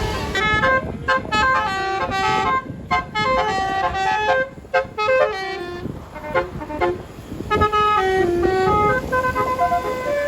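A bus's multi-trumpet telolet air horn playing a tune in quick runs of stepped notes, thinning out a little past the middle, then coming back with longer held notes.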